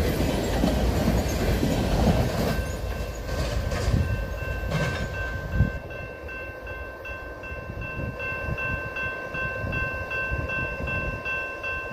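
Flatcars of a freight train rolling past, wheels clacking over the rail joints, the rumble fading as the rear of the train pulls away. From about six seconds in, a steady high ringing tone holds on over the fading train.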